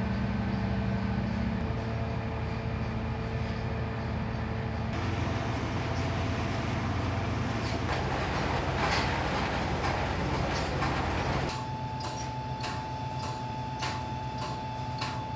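Heavy machinery running steadily: a wheel loader's diesel engine and the conveyors and hoppers of a plant screening oiled beach sand. Near the end the noise gives way to a steady high whine with sharp clicks about twice a second.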